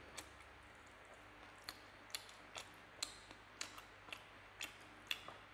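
Faint eating sounds while chewing chicken wing meat: about a dozen short, sharp wet clicks and smacks, roughly two a second.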